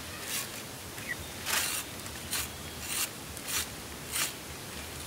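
Raw beef tripe being scraped and rubbed by hand on a plastic sheet, in a run of short, rasping strokes roughly every half second to second. The dark inner lining is being cleaned off after a hot-water scald.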